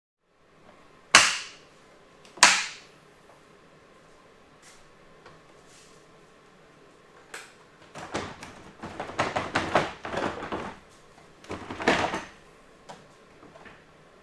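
Two sharp clacks about a second apart, then a few seconds of irregular clattering and knocking from hands-on work with tools and parts on an ATV.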